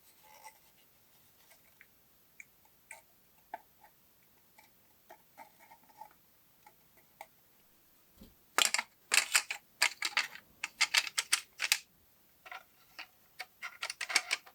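Sharp clicks and taps of small parts being handled. They are sparse and faint at first, then come in a quick dense run of louder clicks from about eight seconds in to about twelve, with a few more near the end.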